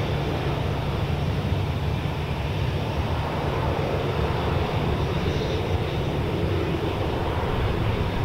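Boeing 737-800's CFM56-7B jet engines running steadily as the airliner rolls out along the runway after landing, heard as an even noise with a heavy low rumble.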